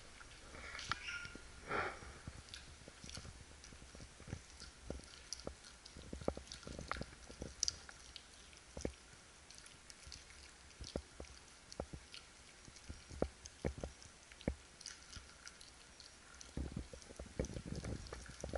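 A husky eating from a stainless steel bowl: faint, irregular crunches and clicks of chewing and of food against the metal bowl, coming a little thicker near the end.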